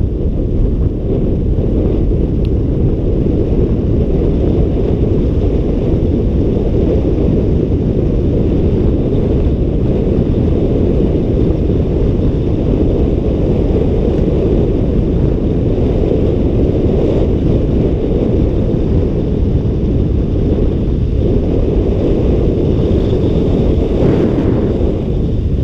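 Wind buffeting the action camera's microphone on a fast downhill ride. It is a steady, deep rumble with no break.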